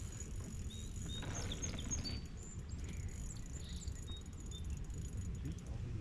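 Wind buffeting the microphone with a steady low rumble, with a scattering of short, high bird chirps over it.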